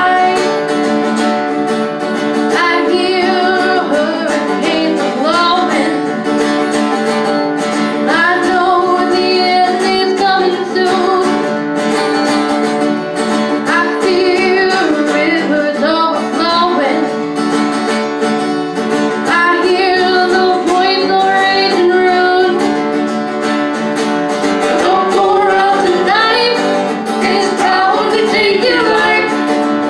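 Live folk song: a woman singing lead, accompanied by acoustic guitar.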